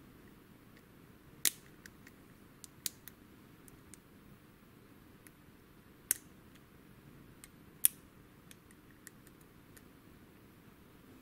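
Light metallic ticks and clicks of a lock pick working the pin stack of a WILKA euro cylinder with security pins under tension, with four sharper clicks standing out among the fainter ticks.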